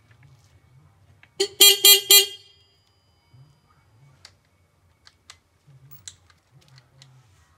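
Electric horn of a newly assembled Motoland 250 Enduro motorcycle beeped in about four quick short blasts about a second and a half in, as its electrics are tested once the battery is connected. A few faint clicks follow.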